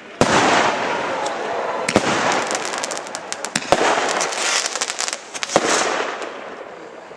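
Aerial fireworks bursting in the sky: four sharp bangs about two seconds apart, each followed by the hiss and crackle of the burning stars.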